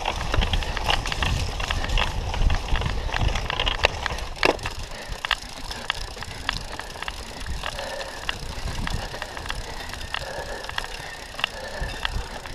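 Cyclocross bike on rough grass, heard through its handlebar-mounted camera: sharp knocks and rattles from the frame, chain and camera mount over a low rumble of the wheels and ground. The bike is ridden and then pushed alongside the running rider, and the rumble eases from about halfway while the scattered knocks go on.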